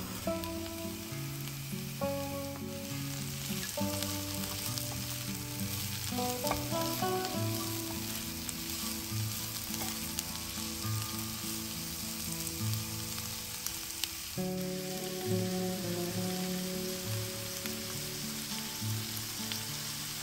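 Diced yellow bell pepper and onion sizzling in oil in a nonstick frying pan, stirred with a spatula.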